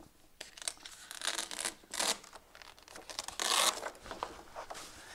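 Large paper sheet being pulled off a tri-fold display board: a run of rustling and crinkling, loudest about three and a half seconds in.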